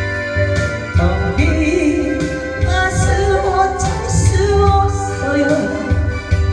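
A woman singing a Korean trot ballad over a backing track with a steady bass beat and a wavering melody line.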